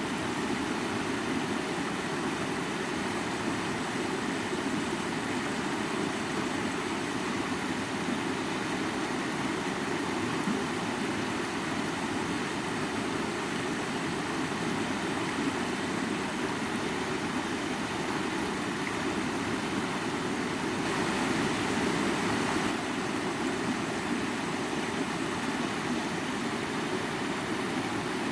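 Mountain river flowing: a steady rush of water, briefly a little louder and brighter about three quarters of the way through.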